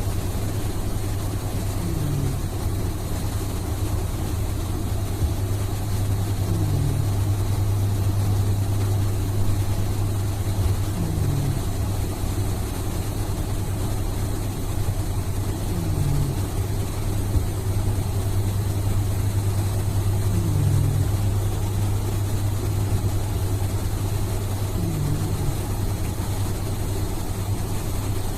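Slow, regular snoring, one snore about every four and a half seconds, six in all, over a steady low hum.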